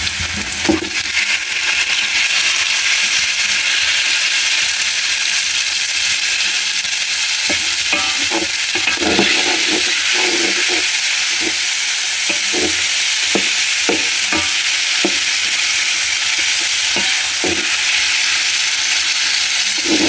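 Food sizzling as it fries in a hot pan, a steady hiss, with short knocks of a utensil stirring it through the middle stretch.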